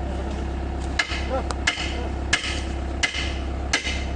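Hammer blows on the steel track links of a Hitachi ZAXIS 70 excavator during a track link change. Five sharp ringing metallic strikes come at an even pace of about one every 0.7 s, starting about a second in, over a steady low hum.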